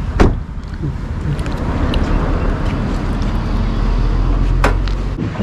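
Low wind rumble on the microphone with road traffic, broken by two sharp clicks, one just after the start and one near the end; the second comes as the bonnet catch of a Hyundai Grand i10 is released and the bonnet lifted.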